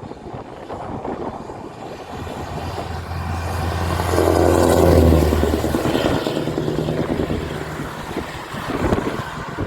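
Heavy truck engine passing by: a steady low engine note builds, is loudest about five seconds in, then fades away, with wind noise on the microphone.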